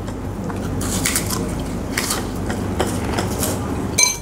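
People biting and chewing raw lalapan vegetables at close range, with several crisp crunches spread through. A sharp clink of tableware comes near the end.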